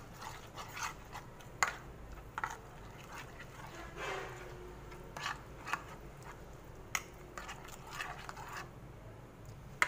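Spoon scraping and knocking against a bowl while stirring a thick yogurt-and-spice marinade: scattered taps and scrapes, a few seconds apart.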